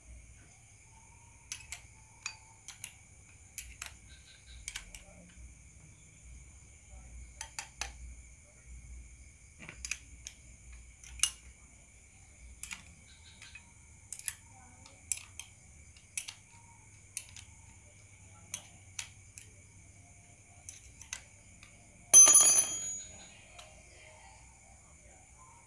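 Scattered light clicks and knocks of metal tools and starter-motor parts being handled, then one loud ringing metallic clang about 22 seconds in that fades over a second. A steady high insect trill runs underneath.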